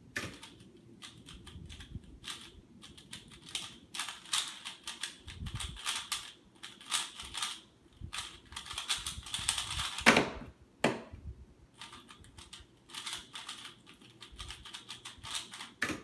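Rapid clicking and clacking of a 3x3 speedcube's layers being turned fast during a solve. About ten seconds in there is a loud sharp thump, then a second one, and after a short pause the quicker layer-turning clicks start again.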